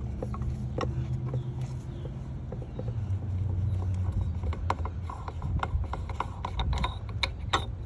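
Oil catch can being handled, likely opened to check for collected oil: a string of small metallic clicks and clinks that grows busier over the last few seconds, over a steady low hum.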